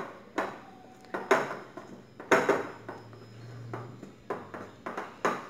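Hands handling a clear craft sphere and a foam hat on a tiled tabletop: about half a dozen irregular knocks and clicks as the hat is pressed and fitted onto the sphere.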